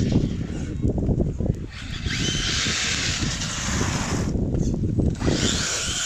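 Brushless electric motor of a 1/10-scale RC car accelerating hard, its high whine rising in pitch. The whine cuts off about four seconds in and comes back near the end, over a low rumble.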